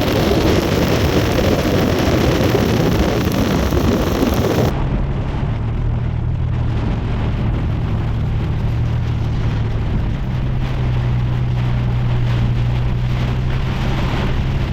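Heavy rain as a dense rushing noise. About five seconds in it cuts off abruptly and gives way to a steady low hum with fainter rain noise over it.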